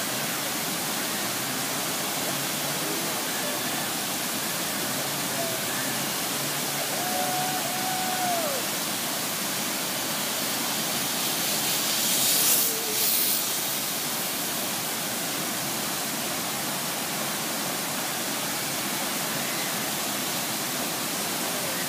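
Large waterfall: a steady, dense rush of falling water, with a brief louder swell of hiss a little past halfway through.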